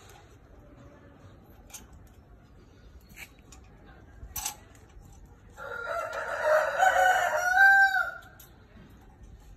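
A rooster crowing once, about two and a half seconds long, in the second half. A few short sharp clicks come before it.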